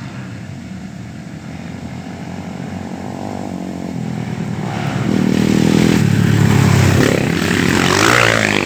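Rally motorcycle engine approaching, growing steadily louder, and passing close near the end with its pitch dropping.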